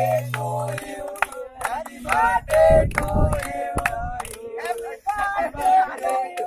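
A group of men's voices singing and shouting together, with hand claps. Steady background music cuts off within the first second.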